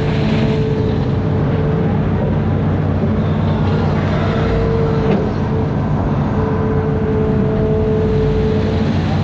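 Amphibious excavator's diesel engine running steadily, with a whine over it that comes and goes.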